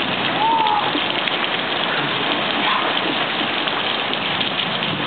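Thunderstorm rain pouring down in a steady, even hiss.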